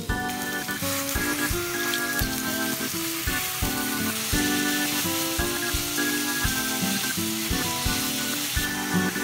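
Thin-sliced beef sizzling in sesame oil in a frying pan as it is stirred with chopsticks, with background music playing over it.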